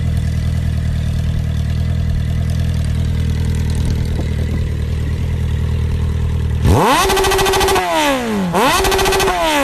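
Motorcycle engines idling with a steady low drone. About seven seconds in, an engine revs up sharply, holds, drops and revs up again, then winds down near the end.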